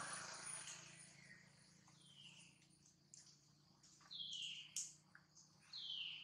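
Faint high animal calls: three short whistle-like calls, each falling in pitch, spread across a few seconds with scattered small chirps between them. A distant engine hum fades out in the first second.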